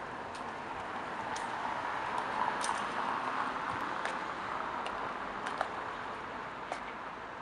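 Steady outdoor background noise with a dozen or so light, sharp clicks and taps scattered through it.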